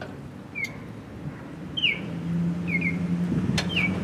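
A low steady hum that grows louder about halfway in, with a few short high chirps falling in pitch and a couple of faint metal clicks as a retaining clip is fitted on the mower deck bar.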